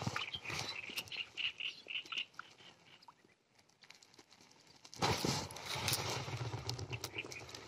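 Spinning reel being cranked, a quick run of even ticks for about two seconds. After a quiet spell, about five seconds in, close rustling and knocking as the rod is picked up and handled.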